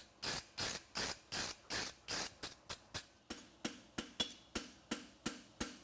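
Wire brush scrubbing scale off a red-hot steel horseshoe on an anvil in quick even strokes, about three a second. A little past halfway it changes to light hammer blows on the shoe against the anvil, each with a short ring, at about the same pace: the final flattening.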